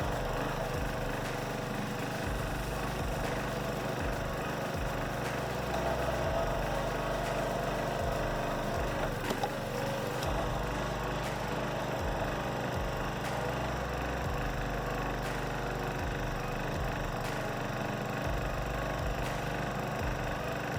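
Small gasoline engine of a hydraulic log splitter running steadily, driving the hydraulic pump through a newly replaced jaw coupling and spider bushing, so the splitter is working again.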